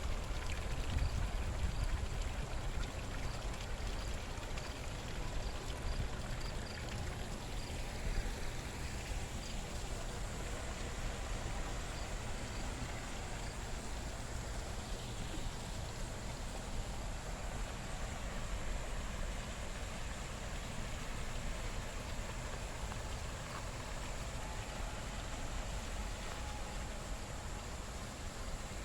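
Running water of a garden waterfall: a steady rush with a low rumble beneath it.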